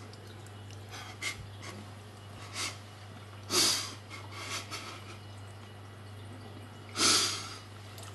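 Two loud breathy exhalations, like snorts or sighs, about 3.5 and 7 seconds in, from someone tasting the food, with a few faint clicks in between and a low steady hum underneath.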